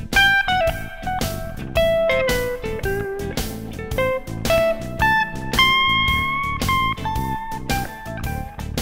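Background music: an electric guitar playing a bluesy melody over bass and a steady drum beat.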